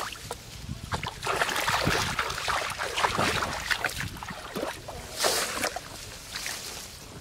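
Water splashing and sloshing as people wade through shallow muddy water, with a louder splash about five seconds in.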